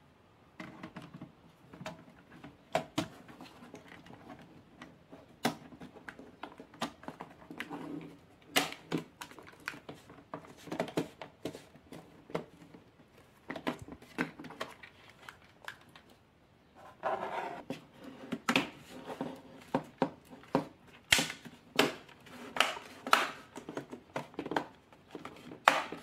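Plastic bottom cover of an HP laptop being pressed back onto the case by hand: a long run of irregular clicks and snaps as its clips catch, mixed with knocks from handling the plastic case.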